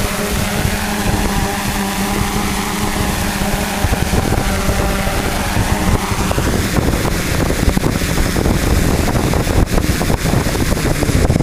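Hexacopter's electric motors and propellers running in flight, a steady multi-toned buzz whose pitch sags and rises with throttle. In the second half it turns rougher, with wind buffeting the microphone.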